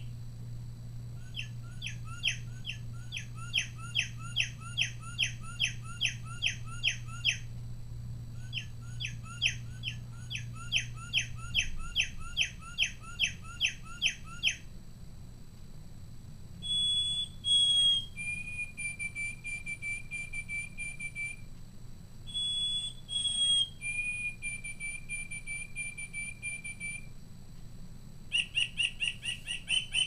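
Mark Feldstein singing bird clock's small speaker playing recorded birdsong: a northern cardinal's song of rapidly repeated slurred whistles, twice, then a white-throated sparrow's clear whistled song of a couple of higher notes and a long lower one, twice. Near the end a white-breasted nuthatch's quick repeated notes begin.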